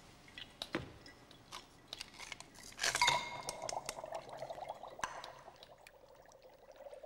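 Glass clinking against glass, then dry ice tipped from a small glass into a glass of water about three seconds in: a splash, followed by a couple of seconds of fizzing and bubbling as the dry ice boils off into fog.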